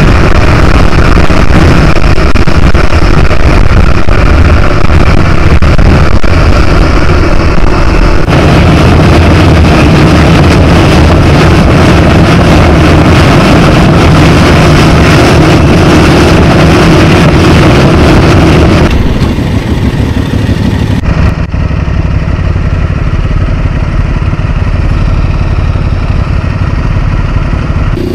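Motorcycle riding at highway speed, recorded from the bike: a steady engine drone under heavy wind rush on the microphone. About two-thirds of the way through, the sound drops abruptly and becomes quieter and duller.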